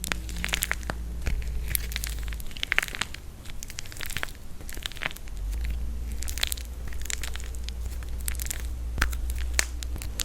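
Dried plaster clay being crushed and cracked by hand: many small, irregular crackling snaps and crunches.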